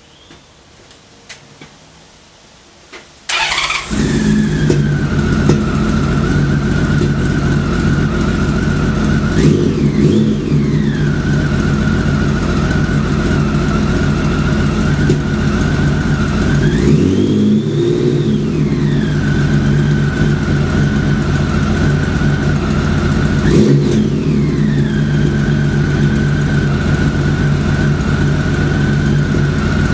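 Honda Valkyrie's 1520 cc flat-six motorcycle engine, running on freshly rebuilt carburetors, starting about three seconds in, catching at once, then idling steadily. The throttle is blipped three times: short revs near the start and near the end, and a longer rev that rises and falls in the middle. A few faint clicks come before the start.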